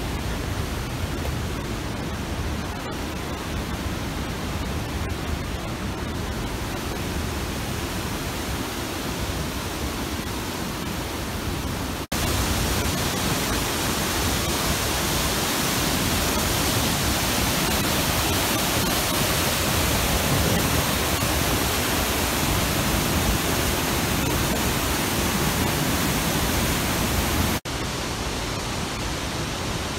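Steady rushing of flowing water, with no distinct events. It jumps abruptly to a louder take about twelve seconds in and drops back just before the end.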